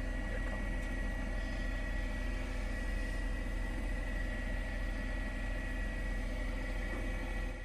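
Steady engine and rotor noise of a helicopter, a constant high whine over a deep rumble, dropping away at the very end.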